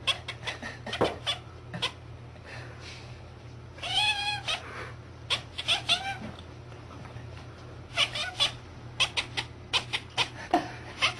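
Domestic cat meowing several times in drawn-out, wavering calls, with many short sharp clicks between them over a steady low hum.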